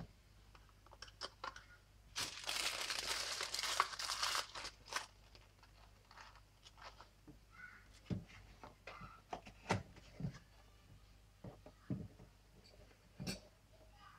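Paper and cardboard packaging crinkling and rustling for about two seconds, then scattered light knocks and taps as the box and pieces are handled on the table.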